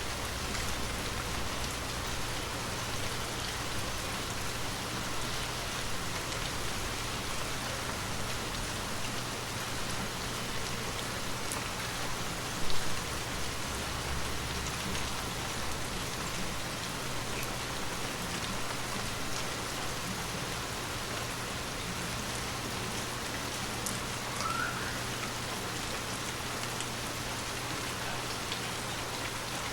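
Gentle, steady rain falling, a constant patter of drops on surfaces, with one brief louder thump a little before halfway.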